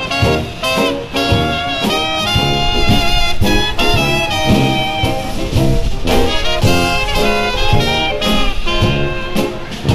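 Upbeat swing-style jazz background music with horns and a steady beat.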